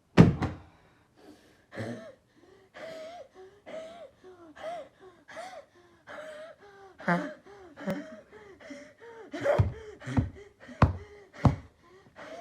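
A man's wheezing laugh: a long string of short, high, squeaky gasping breaths, about two a second. It opens with a sharp loud gasp, and a few louder, sharper gasps come near the end.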